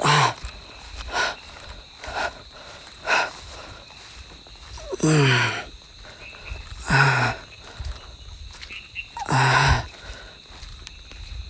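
A man's voice making four short, low groans or voiced heavy breaths, one at the start and about five, seven and nine and a half seconds in, with softer breaths in between.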